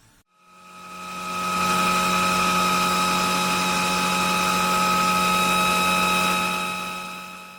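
Cordless stick vacuum cleaner's motor running at a steady pitch. It swells in over the first second or so and fades away near the end.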